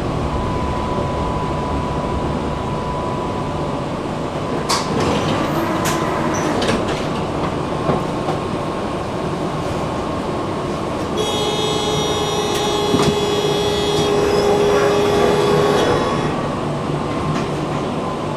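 Tram running along the rails with a steady low rumble and a few clicks from the track. Past the middle, a steady high-pitched squeal is heard for about five seconds.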